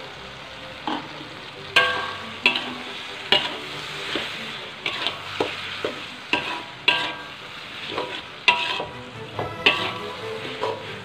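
Metal spatula scraping and clanking against an aluminium wok while food is stir-fried, over a steady sizzle. The clanks ring briefly and come about one or two a second from about two seconds in.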